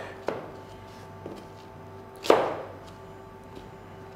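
Kitchen knife chopping a green apple on a plastic cutting board: a light knock shortly in, a faint one, then a single loud chop a little past two seconds in.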